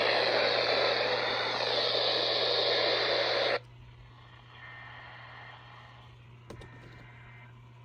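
Weather radio receiver hissing with loud static, which cuts off abruptly about three and a half seconds in, leaving a much quieter hiss with a low steady hum.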